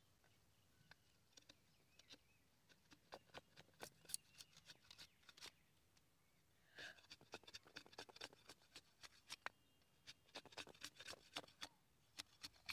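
A curved steel blade shaving a thin strip of green bamboo: faint, quick scraping strokes that come in three runs with short pauses between.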